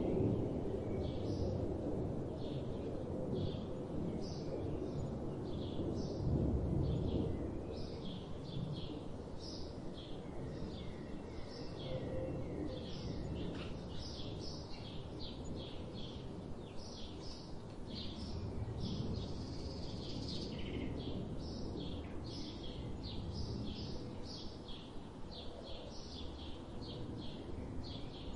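Small birds chirping, short high calls coming a few times a second throughout, over a steady low rumble that swells near the start and again about six seconds in.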